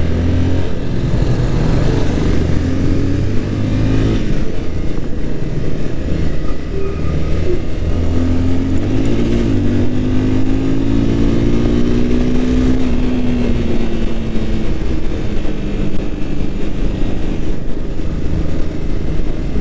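Motorcycle engine running at road speed, its pitch rising and falling with the throttle, over a steady rush of wind and road noise.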